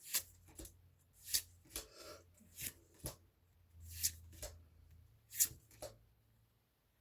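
Pokémon trading cards sliding against one another as they are flipped through by hand: about ten short, crisp swishes at irregular spacing.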